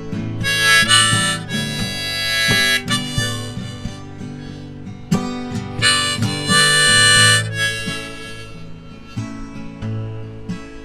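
Instrumental break in a solo song: guitar strumming steadily under two loud harmonica phrases, one near the start and one about halfway through.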